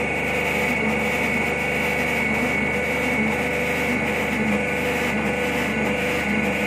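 Hydraulic drum press running: its 5000-watt electric motor and hydraulic pump give a steady machine drone with a high, even whine.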